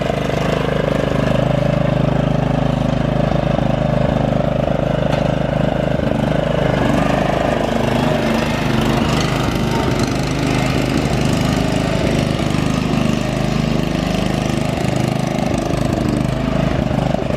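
Troy-Bilt TB30 riding lawn mower's engine running steadily, its pitch wavering a little about two-thirds of the way through.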